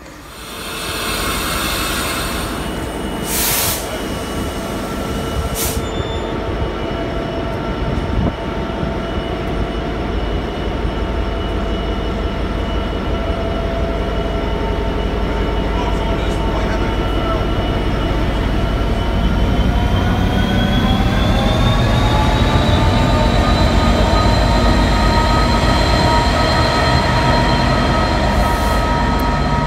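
Class 66 diesel locomotive passing slowly at close range, its two-stroke V12 engine running with a steady hum over a low rumble. The engine's pitch rises about two-thirds of the way through as it opens up, then holds. Two brief sharp sounds come a few seconds in.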